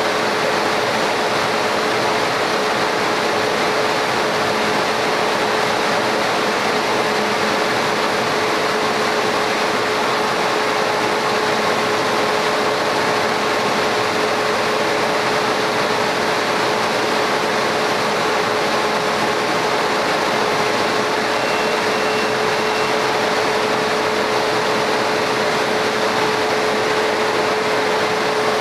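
Laser cutter running while it engraves a tile: a steady fan-like rush with a constant mid-pitched hum.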